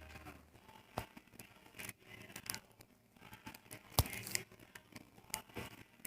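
Faint rustling and handling noise with scattered small clicks, and two sharper clicks about one second and four seconds in.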